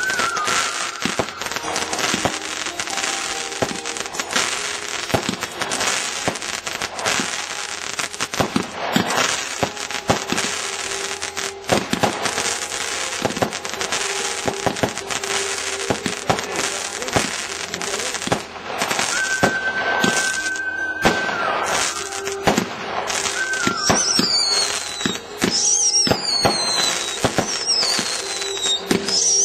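Aerial fireworks bursting into crackling stars: a dense, continuous crackle of many small rapid pops. Near the end comes a run of high, falling whistles, about one every second and a half.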